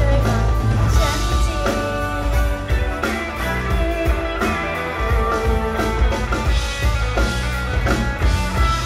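Live pop-rock band playing an instrumental passage, with drums and guitar carrying it and the singer's voice mostly absent.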